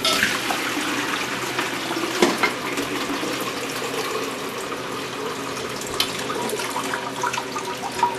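Water trickling and splashing from a toilet tank as its old fill valve and supply hose are taken out, with a few light knocks.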